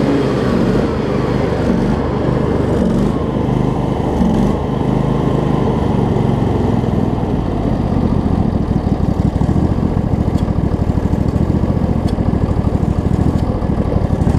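Craftsman DLT riding mower's 25 hp Briggs & Stratton V-twin engine running. Its note wavers at first, then settles about eight seconds in into a steady, rapid pulsing. The engine keeps running because the ignition switch's ground wiring is not yet sorted out to shut it off.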